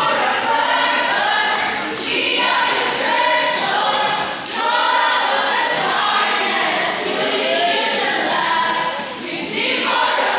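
A large group of young people singing a cheer song together in unison, in short phrases.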